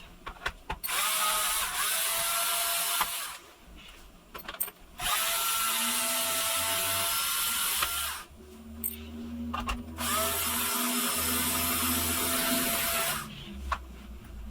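Electric screwdriver running in three bursts of about three seconds each, its motor whine rising in pitch as each one spins up, as it backs out the screws of a laptop's bottom case. Short clicks fall in the pauses between runs.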